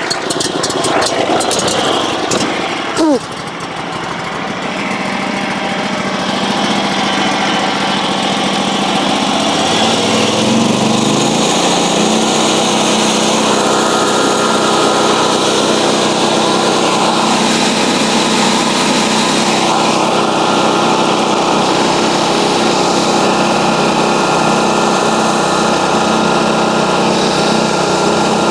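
Small petrol engine of a portable bandsaw mill running. About ten seconds in it is throttled up, its pitch rising over a couple of seconds, then it holds steady at high revs. There is a brief falling squeal about three seconds in.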